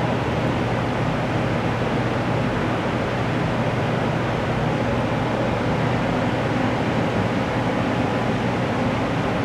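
Steady rushing air noise with a low constant hum, such as a bathroom ventilation fan makes; the fire alarm is not sounding.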